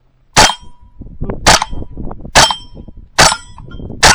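.22 rimfire gun fired five times, about one shot a second, at steel targets. Each hit is followed by a short metallic ring from the steel plate.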